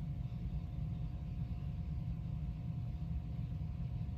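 Steady low background rumble with a faint steady hum above it.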